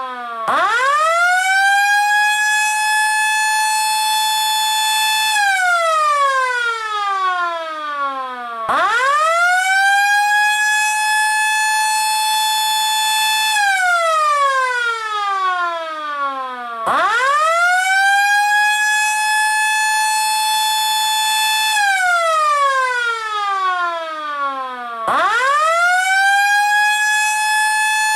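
LK JDW105 air raid siren sounding in repeated wails: the pitch rises quickly to a steady high tone, holds for about five seconds, then slides down for about three seconds before rising again. It starts up four times, roughly every eight seconds.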